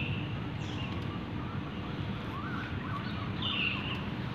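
Outdoor ambience: a steady low rumble with a few short, high bird chirps, one at the start and more about three and a half seconds in.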